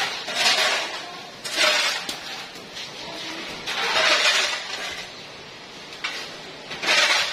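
Four crashing, clattering bursts, each about a second long and irregularly spaced, as batches of reject items are tossed onto a truck load.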